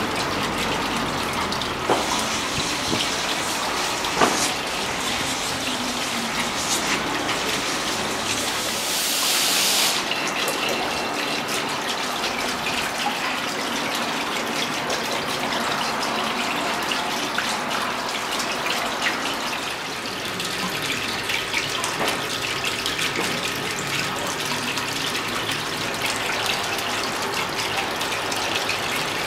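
Water falling in a continuous sheet down the face of a free-standing water wall fountain and splashing into its basin: a steady rushing splash. There are a couple of brief knocks early on and a louder hiss for about a second roughly a third of the way in.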